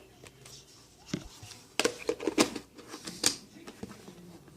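Plastic slime containers being handled: a handful of sharp clicks and knocks, the loudest a little past the middle.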